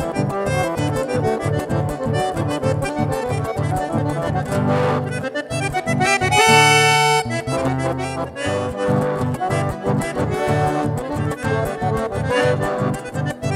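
Button accordion playing a lively chamamé with a steady beat, accompanied by acoustic guitar. About six seconds in, the accordion holds one long, loud chord for about a second before the rhythm picks up again.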